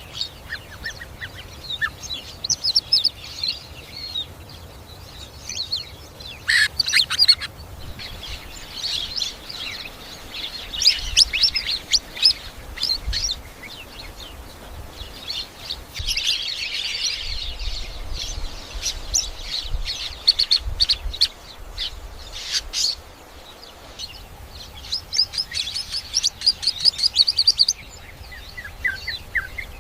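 Weaver birds chirping and chattering: bursts of short, rapid chirps and fast buzzy trills that come and go, densest around the middle and again near the end.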